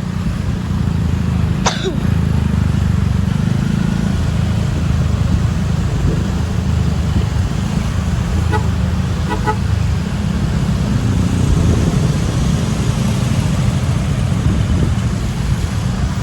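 Loud, steady low rumble of bus engines and road traffic, with a sharp click near the start and a few short, faint horn toots about halfway through.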